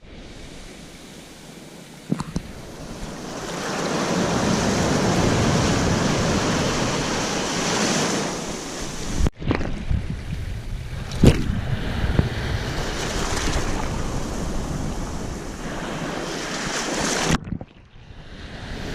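Rough sea: waves surging and breaking in long swells, with wind buffeting the microphone and a couple of sharp knocks. The sound cuts out abruptly twice.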